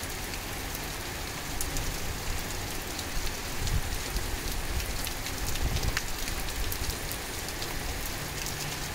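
Heavy rain shower falling on a lawn and concrete path, a steady hiss scattered with many sharp ticks of drops. Two brief low rumbles come a little past the middle.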